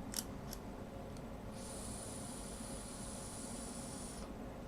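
Airy hiss of vaping an e-cigarette, held steady for nearly three seconds, after two small clicks near the start.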